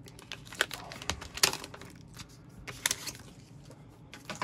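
Crinkling and rustling of a shiny foil card pack being pulled open by hand, with irregular sharp crackles as the wrapper is worked loose to get the card out.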